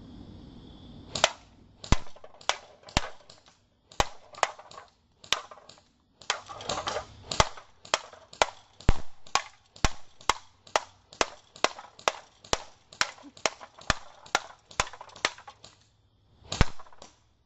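Airsoft electric gun firing single shots, about thirty sharp snaps at roughly two a second, with a short pause before the last shot.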